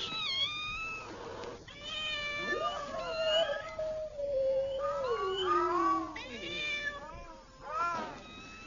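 Several domestic cats meowing, their calls overlapping one another, with one long meow sliding down in pitch about halfway through.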